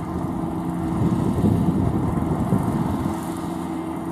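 Kubota L4508VN tractor's 2.2-litre four-cylinder V2203 direct-injection diesel running steadily under load, pulling a rotary tiller through flooded mud. It grows louder about a second in, then eases back.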